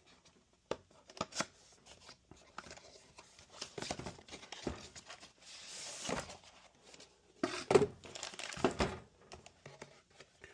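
A product's packaging being handled and opened: plastic crinkling and tearing among irregular clicks and taps, loudest in a burst about three quarters of the way through.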